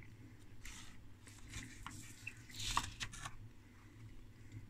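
Faint handling sounds of hands moving the wiring and the plastic case of an opened bench power supply: a couple of short rustles and a few light clicks, over a low steady hum.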